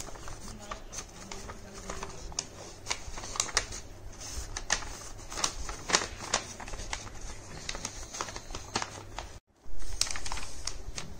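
A sheet of A4 colour paper being folded and creased by hand: irregular rustling with crisp crackling clicks. The sound cuts out for a moment about nine seconds in.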